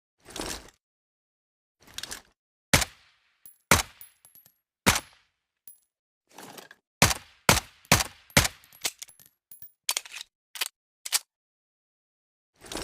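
Suppressed M1911 pistol: an irregular series of muffled shots and sharp mechanical clicks, with a few brief high metallic pings among them.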